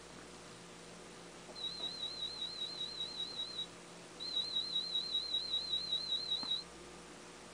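Audiometer warble tones in an aided cochlear-implant hearing test: two high-pitched test tones that wobble evenly in pitch, each about two seconds long, the second louder.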